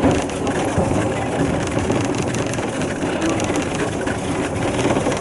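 Sherpa-kun tourist trolley train under way: a steady engine drone mixed with wheels rolling on the rails, with faint scattered clicks.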